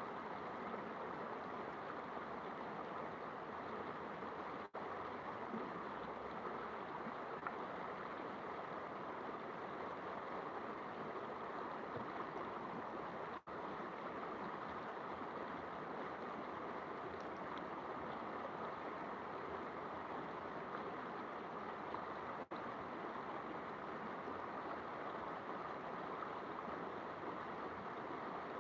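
Steady rush of flowing river water, even and unbroken apart from three momentary dropouts in the sound.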